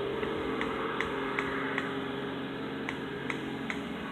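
An engine running at a steady speed, a low hum with a few even tones, with a light, regular ticking about two or three times a second over it.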